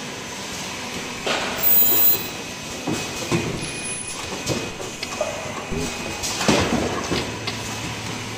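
Automatic cup-mask production machine running: a steady machine hum with repeated clacks and hissing bursts from its moving stations. The loudest burst, about two seconds in, carries a brief very high whine, and a low steady hum comes in near the end.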